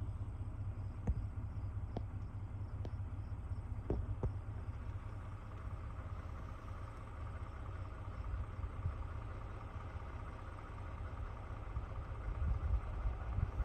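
Steady low rumble of a car driving, with a few faint ticks in the first four seconds.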